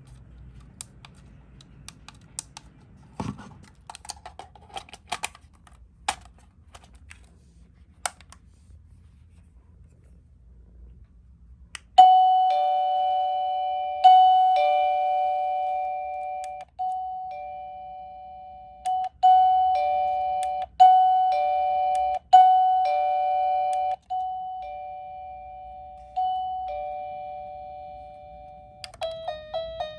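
Wireless doorbell receiver repeatedly sounding a two-tone ding-dong chime, each new press restarting it with a sharp strike that then fades. It comes after several seconds of small plastic clicks. Near the end the chime changes to a quicker melody of several notes, another of its ring tunes.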